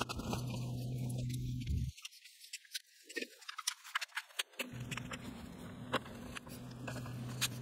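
Plastic bottom cover of an MSI gaming laptop being pressed and snapped into place, then its screws driven in with a small hand screwdriver: a scatter of light clicks and taps, over a faint low hum that drops out for a couple of seconds in the middle.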